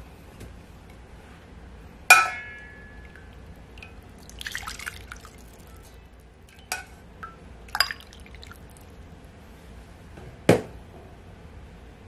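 A metal ladle scooping vegetable stock from a stainless steel pot into a bowl. There is a sharp ringing clink of ladle on pot about two seconds in, then a brief splash of pouring liquid. A couple of lighter clinks follow, and a sharper knock comes near the end.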